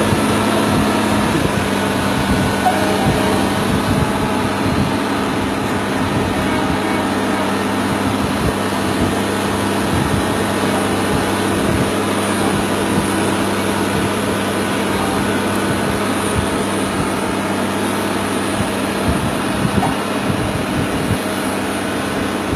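Caterpillar 12M motor grader's diesel engine running steadily close by, a constant low hum whose pitch steps down slightly about a second in.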